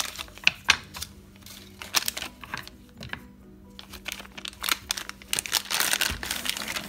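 Food packaging crinkling and rustling as it is handled, with scattered sharp clicks and taps and a longer rustle near the end, over soft background music.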